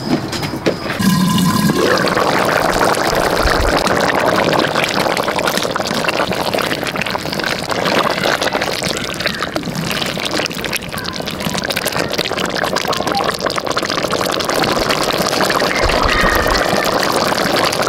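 Beef and vegetable stew bubbling steadily at a boil in a cooking pot.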